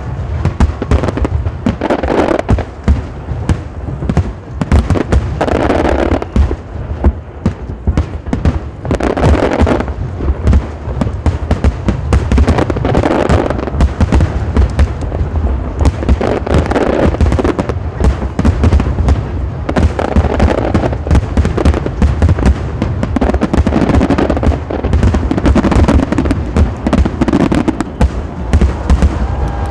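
Fireworks display in a dense, unbroken barrage: shells bursting with rapid overlapping bangs and crackle, swelling louder every couple of seconds.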